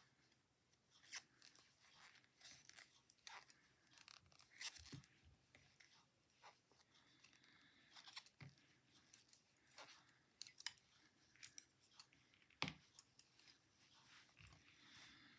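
Faint, irregular clicking and light scraping of knitting needles working yarn, with one sharper click near the end.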